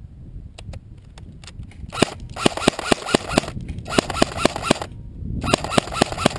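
Airsoft electric rifle firing three bursts of rapid, evenly spaced shots, each a second or so long, after a few scattered single clicks.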